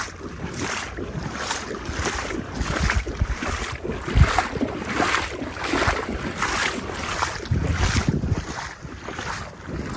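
Legs wading through knee-deep floodwater, a regular slosh and swish with each stride, about one and a half steps a second. Wind buffets the microphone underneath.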